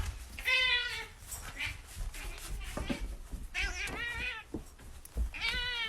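Domestic cat meowing three times, each call under a second long.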